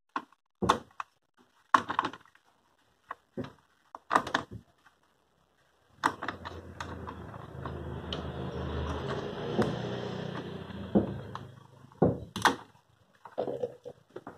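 Sharp clicks and knocks of an Intel stock CPU cooler being handled and pressed down onto the motherboard by hand, its plastic push-pin fasteners seated at the corners. In the middle a continuous rubbing handling noise lasts about six seconds, then a few more clicks.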